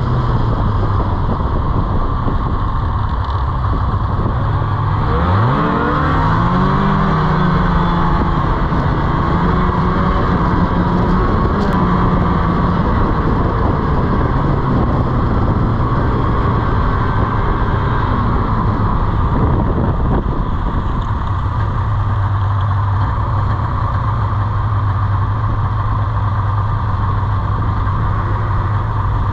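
Snowmobile engine running steadily, then throttled up sharply about five seconds in and held at a higher pitch, easing back down about twenty seconds in.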